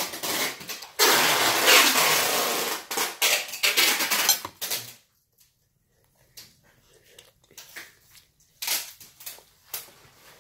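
Slurping a mouthful of bihon rice noodles, a loud noisy sucking that breaks off at about five seconds, followed by quiet chewing with a few soft mouth clicks.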